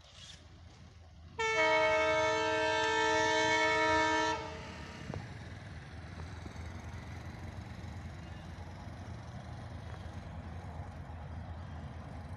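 The Drutojan Express's diesel locomotive sounds one long air-horn blast of several notes together, about three seconds long, warning as it approaches to run through the station without stopping. After the horn, the low rumble of the oncoming train carries on and slowly grows.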